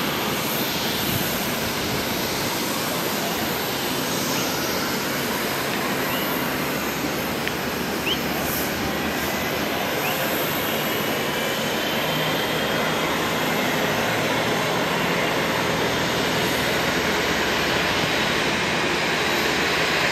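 Jet aircraft engine noise: a steady rushing sound with a faint high whine that slides slowly upward.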